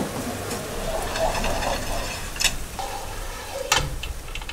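Steady hissing background noise with a faint murmur of voices and two sharp knocks, one about two and a half seconds in and one near four seconds.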